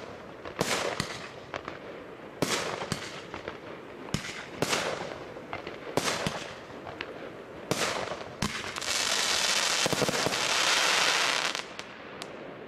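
Pinto 'Red Devil' firework going off: a string of sharp bangs every second or two, each with a crackling tail, then about three seconds of dense, continuous crackling near the end that dies away.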